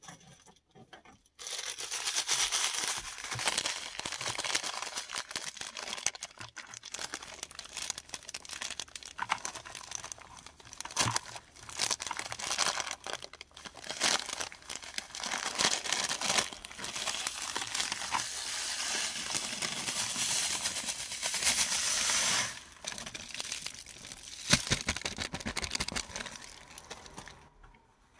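Paradichlorobenzene mothball tablets being crushed and crumbled by hand: continuous gritty crunching and crackling with sharp cracks. It starts about a second and a half in and stops just before the end.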